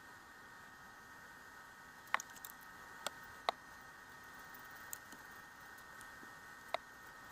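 Light handling of art materials on painted chalk blocks: a fan brush sweeps over them and black granules are sprinkled from a small plastic jar. The result is about five short, sharp clicks spread through, the loudest two about two and three and a half seconds in, over a faint steady hiss.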